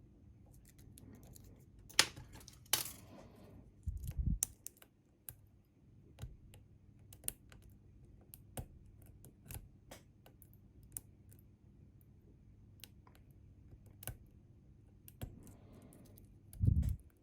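Metal lock-picking tools clicking and scraping inside a Bi-Lock cam lock as it is picked, in irregular small clicks. Twice there is a dull thump: once about four seconds in, and once near the end.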